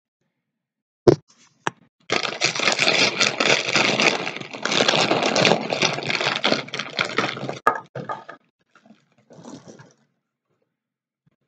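A plastic snack bag of popped mini cakes crinkling and rustling loudly for about six seconds, after a sharp knock about a second in; a few fainter crackles follow near the end.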